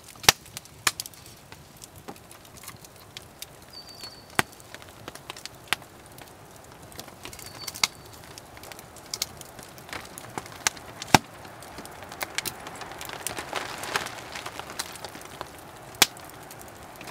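Small campfire crackling, with sharp single pops at irregular intervals over a soft steady hiss that swells briefly about three-quarters of the way through.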